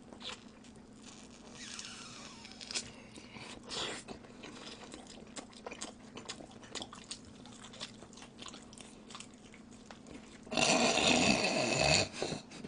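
Close-miked biting and chewing of deep-dish pizza: small wet mouth clicks and crunches. A much louder rushing noise comes in about ten and a half seconds in and lasts about a second and a half.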